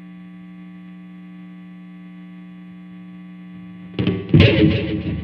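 Steady electrical hum from the guitar rig. About four seconds in, a distorted electric guitar starts playing loudly.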